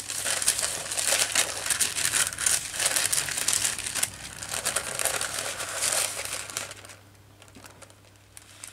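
Paper and a plastic laminating sheet crinkling and rustling as they are handled and fed into a laminator, stopping about seven seconds in.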